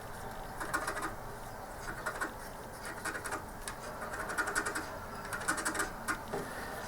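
Short scratching strokes repeated in quick clusters, a small tool scraping grime off the plastic rollers of a ball mouse.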